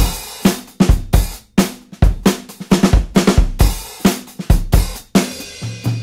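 Music: a drum kit playing on its own, a beat of kick drum, snare and cymbal hits.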